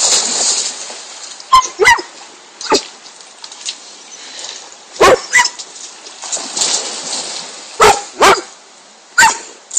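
A dog barking: about eight short, sharp barks, mostly in quick pairs, over the splashing of a dog swimming through river water.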